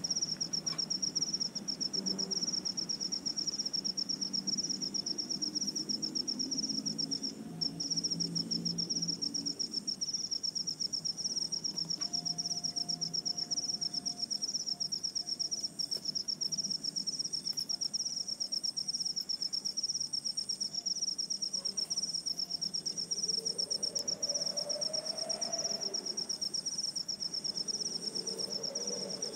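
A continuous, high-pitched insect trill, pulsing rapidly at one steady pitch. It cuts off suddenly at the very end.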